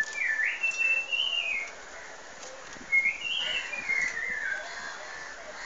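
Pet myna whistling two phrases, each rising and then stepping down in pitch, with a short gap between them.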